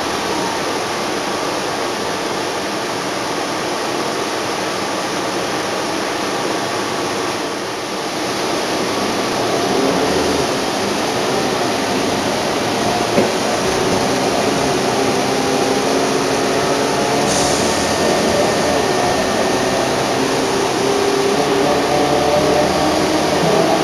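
Inside a NABI 31-LFW transit bus: the Cummins L Gas natural-gas engine and ZF automatic transmission running steadily under the road and cabin noise, the engine working harder from about ten seconds in. A short hiss comes a few seconds later.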